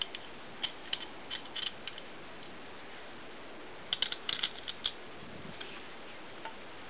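Light clicks and ticks from hands handling a two-piece quad rail handguard on an AR-15 carbine, in two short flurries: one at the start and one about four seconds in.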